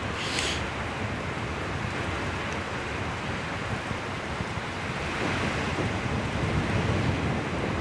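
Strong storm wind rushing steadily and buffeting the microphone, with only light rain. There is a brief higher hiss just under a second in, and the wind swells a little from about five seconds.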